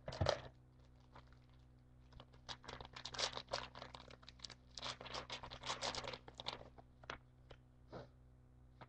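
Football trading cards being handled and flipped through: a dull thump right at the start, then several seconds of dense crinkly rustling and scraping of card stock, followed by a few isolated light ticks.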